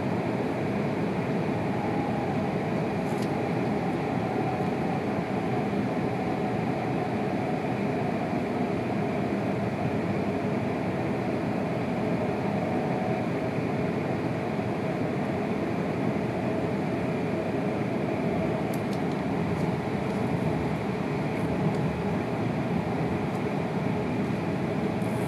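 Shinkansen passenger car running at speed, heard from inside the cabin: a steady rumble and rush of wheels on rail and air past the car body.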